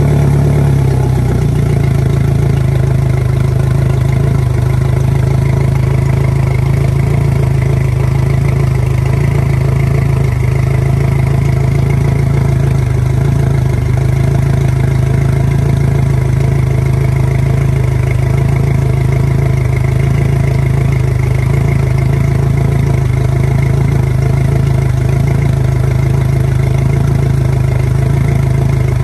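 Yamaha 150 hp four-stroke outboard, an inline four-cylinder, idling steadily just after starting, with its propeller turning in gear out of the water.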